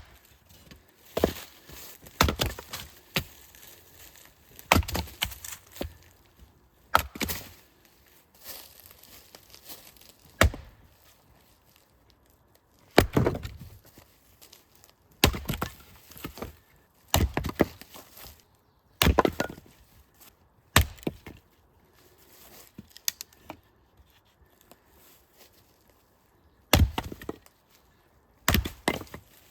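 Firewood being chopped: sharp wooden strikes, one every second or two at an uneven pace, some followed by a short splintering crack.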